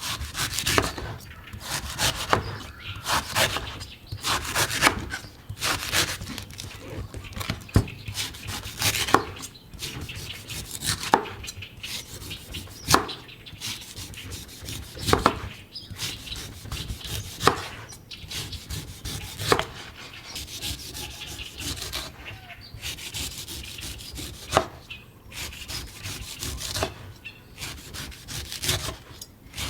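A sharp knife cutting into a coconut's fibrous husk in repeated scraping, chopping strokes. The strokes come quickly at first, then about every two seconds.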